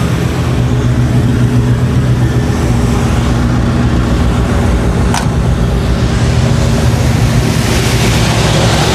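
1970 Ford F100's engine running steadily at idle on a freshly fitted Holley carburettor, which is running rich. A brief high rising squeak about five seconds in.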